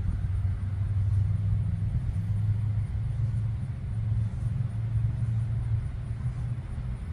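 Steady low rumble of a vehicle engine, with a faint hum that wavers slightly in pitch.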